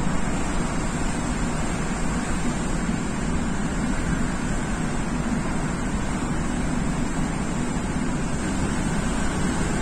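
MTR Tung Chung line K-Train running between stations, heard from inside the car: a steady low rumble and rushing noise of the train at speed on the track.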